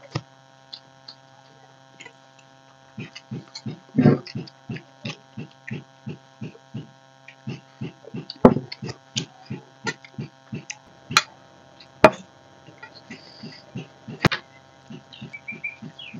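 Close-miked chewing of a mouthful of rice and green jackfruit curry, in a regular rhythm of about three chews a second starting about three seconds in, with a few sharp clicks. A steady electrical hum runs underneath.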